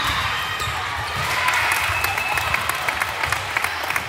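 Indoor volleyball rally ending in a point, heard in a large echoing gym: players calling out, shoes squeaking on the court, then scattered clapping from about a second and a half in.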